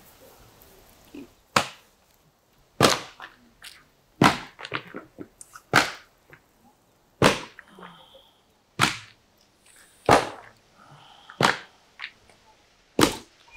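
A series of about nine sharp cracks, evenly spaced about one every second and a half, with fainter clicks between them.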